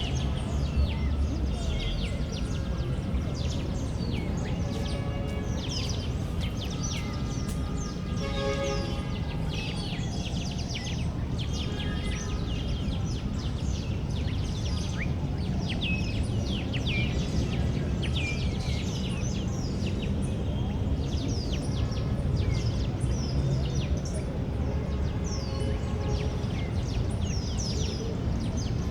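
Many small birds chirping and singing in quick, short notes throughout, over a steady low rumble of background noise.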